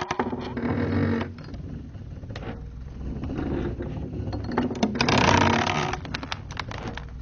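Wood creaking under strain: a rapid chatter of creaks, loudest near the start and swelling again about five seconds in.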